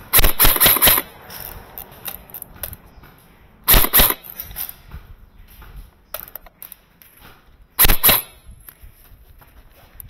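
Airsoft gun fired in three short, rapid bursts of several shots each: one right at the start, one about four seconds in and one about eight seconds in.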